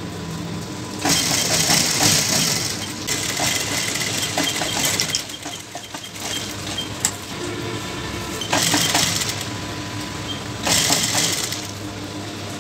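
Industrial lockstitch sewing machine stitching lace onto a fabric waistband in several short runs with pauses between them. A steady motor hum continues underneath.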